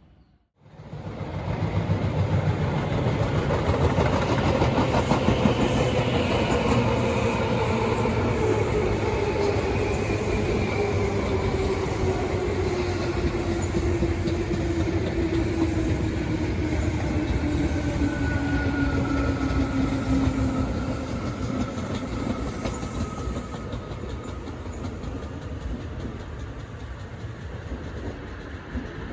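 Electric train slowing down: its motor whine falls steadily in pitch over about twenty seconds, over the rumble and clatter of wheels on rail. The sound eases off in the last several seconds.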